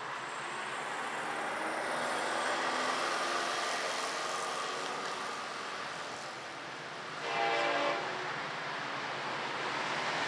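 Distant diesel locomotive horn on an approaching Florida East Coast freight train: one short blast, a chord held under a second, about seven seconds in, over a steady background rush.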